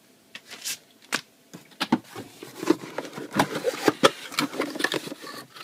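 Cardboard packaging being handled inside a laptop box: flaps of the insert lifted and folded, with scattered taps, clicks and scrapes that come thick and fast from about two seconds in.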